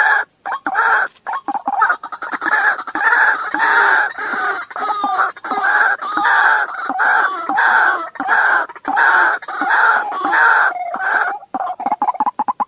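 White-breasted waterhen calling: a steady run of harsh, croaking notes about two a second, with quick clicking runs at the start and near the end. It is a recorded call of the kind played to lure waterhens to a snare.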